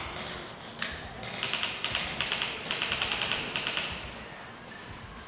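Airsoft electric rifle firing full-auto: rapid mechanical clicking at about ten shots a second, in two or three bursts between about one and four seconds in, after a couple of single sharp clacks.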